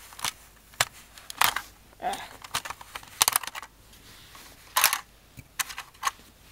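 Handling of a disassembled plastic spring airsoft pistol: a series of irregular sharp clicks and knocks as its parts are picked up and moved.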